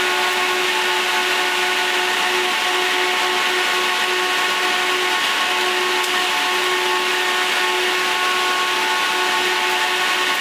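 TA500DC 12 V server cooling fans running steadily at speed: a loud, even rush of air with a whine of several steady tones.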